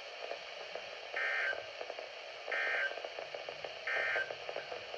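NOAA Weather Radio SAME end-of-message data bursts: three short, identical two-tone warbles, evenly spaced about a second and a half apart, over steady radio hiss, signalling the end of the alert broadcast.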